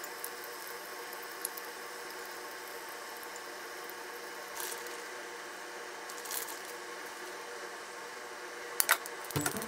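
Chicken tenders sizzling gently in a frying pan as a steady, quiet hiss. Chopsticks give a couple of soft clicks partway through and two sharper clicks near the end.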